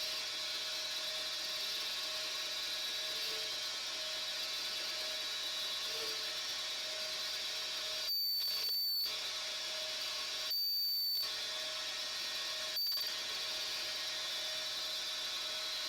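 Small metal lathe running steadily as its cutting tool turns down a spark plug, with three brief high-pitched squeals of the tool on the work about halfway through, the last the shortest.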